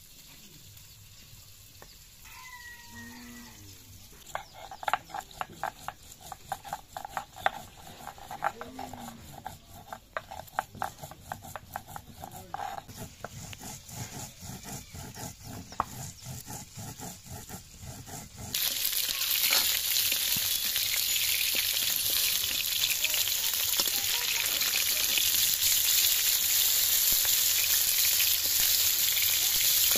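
Spices and dried red chillies being ground by hand on a stone grinding slab: quick, rhythmic scraping strokes. About eighteen seconds in, this cuts suddenly to loud, steady sizzling of rohu fish pieces frying in oil in an iron kadai.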